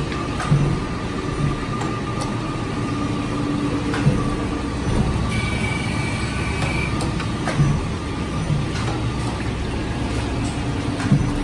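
Electromagnetic blade grinding machine running while grinding a press bar: a steady mechanical running noise with a low hum and a higher whine that each come and go every few seconds, and a few sharp clicks.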